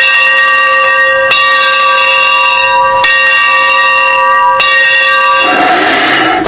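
Train bell rung four times, about every one and a half seconds, each stroke ringing on into the next. About five and a half seconds in, a loud rushing hiss takes over.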